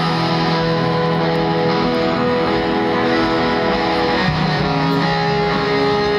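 Punk rock band playing live: distorted electric guitars and bass ring out sustained chords, moving to a new chord about four seconds in.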